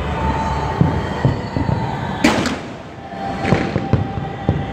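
A fireworks display going off: a run of low booms and pops, with one sharp crack about two seconds in, over show music with long held tones.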